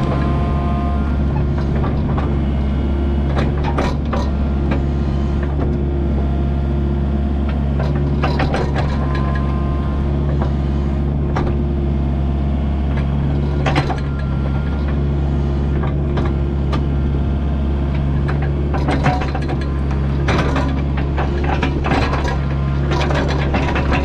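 Kubota U55-4 mini excavator's diesel engine running steadily under work, with scattered knocks and clatter from the machine and the dirt it is moving.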